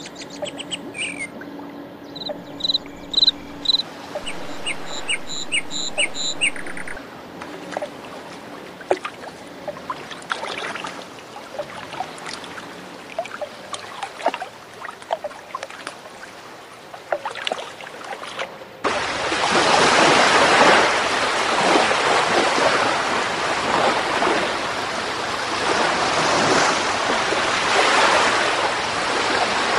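Birds chirping in short repeated high notes, over a soft background with scattered small clicks. About two-thirds of the way in this cuts abruptly to loud ocean surf, waves rushing and washing in with a swelling, falling roar.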